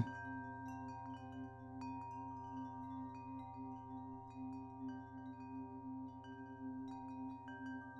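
Quiet meditation background music: steady held drone tones with high chime notes sounding here and there.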